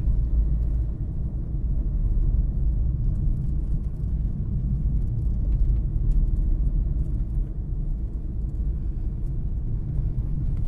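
Car driving along a rural road, heard from inside the cabin: a continuous low rumble of engine and tyre noise that wavers slightly in loudness.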